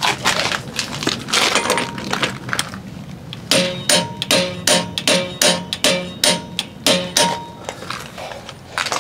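Large click-type torque wrench on a truck lug nut, set to 300 ft-lb. First come scattered knocks and scuffs as the socket is seated on the nut. Then, from about three and a half seconds in, about nine sharp metallic clicks follow roughly 0.4 s apart, each with a short metallic ring.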